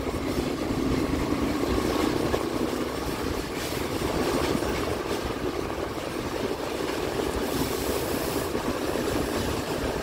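Diesel-electric locomotive running with its train under way: a steady engine and rail noise.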